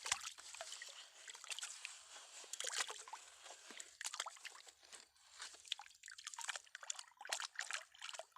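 Loose sand trickling and scratching as it is dug and cleared out of a truck bed: a faint, irregular crackle of many small grains.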